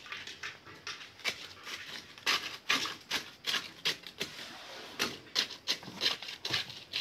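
Wet concrete in a reinforced beam form being rammed by hand with a rod to settle it: a run of short, sharp knocks, about two a second.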